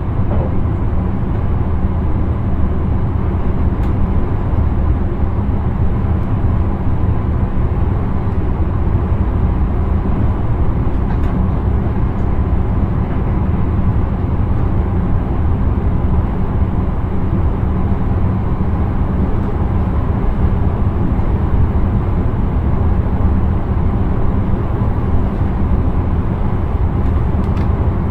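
Steady running noise of an intercity train heard from the driver's cab while under way: a constant low rumble with no horn or distinct rail-joint clicks.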